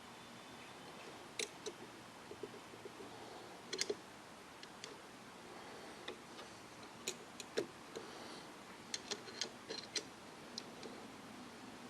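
Irregular light clicks and taps of a radio's tuning-dial mechanism being handled and fitted onto the receiver chassis, with a run of several quick clicks about seven to ten seconds in.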